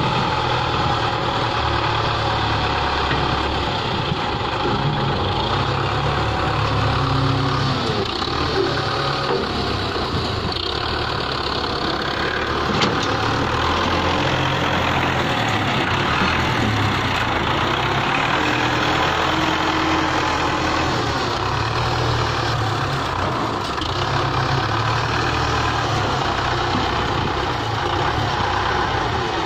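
Belarus 510 tractor's diesel engine running while its front loader lifts and dumps loads of manure, the engine note rising and falling as the loader works.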